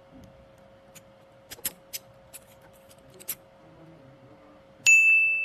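Light metallic clicks and rattles, about seven of them, as a freshly cut snake key is tried in its lock. Near the end comes one bright, pure metallic ding that rings on and fades slowly.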